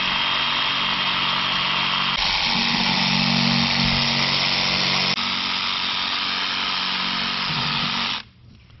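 A handheld power saw runs steadily while carving the mouth into a pumpkin. Its pitch shifts a couple of times as it bites in, and it cuts off abruptly near the end.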